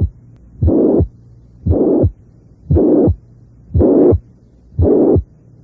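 Recorded heart sounds of mitral regurgitation, about one beat a second. Each beat has a first-heart-sound click, then a blowing murmur that fills the whole gap up to the second-heart-sound click, then a quiet pause. The murmur is louder and harsher across these beats than just before, as happens when such a murmur grows more intense.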